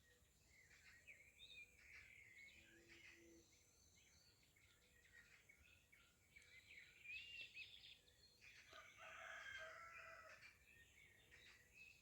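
Faint outdoor birdsong: many small birds chirping and warbling throughout, with a rooster crowing for about two seconds past the middle.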